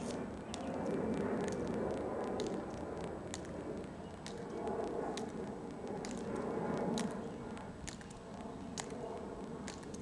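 Two soldiers marching in step on a stone plaza: crisp clicks from the metal taps on their dress shoes, about one a second, over a steady low background hum.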